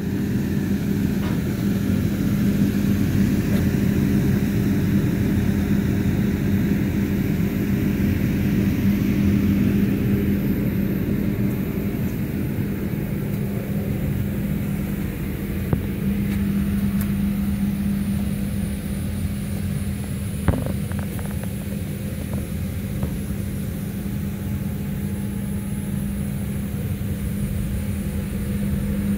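Electric inflatable blower fan running steadily, a continuous hum with a strong low tone, keeping the bouncy castle inflated. A couple of brief knocks sound over it about 16 and 20 seconds in.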